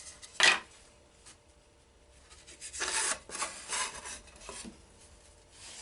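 A piece of wood being handled and slid into place on a table saw crosscut sled: a sharp knock-like scrape about half a second in, then a couple of seconds of wood scraping and rubbing against wood.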